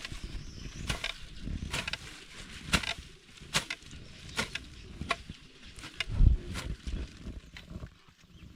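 Hand tool chopping into grass and soil while clearing weeds, about one sharp strike a second, with a heavier thud about six seconds in.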